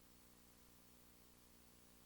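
Near silence: dead air with only a faint steady hum.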